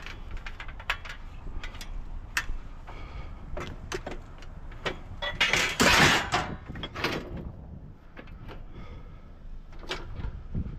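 Scrap metal pieces being handled and loaded: scattered knocks and clanks, with a louder scrape about six seconds in.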